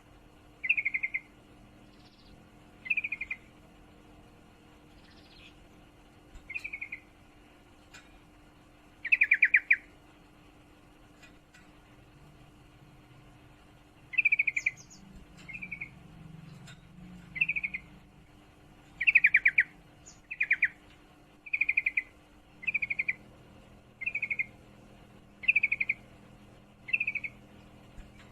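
Female yellow-vented bulbul giving short, fast-pulsed trilled calls (ngriwik), each about half a second, spaced out at first and then repeated every second or two from about halfway; these are the calls of a female in breeding condition calling to a male. A faint steady hum sits underneath.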